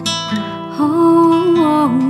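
Background music led by acoustic guitar, with a louder held melody line coming in about a second in.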